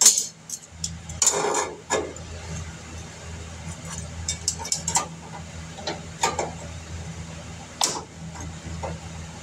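Scattered light metallic clinks and knocks with a short scrape, from sheet-metal pieces and hand tools being handled during body repair on an old truck, over a steady low hum.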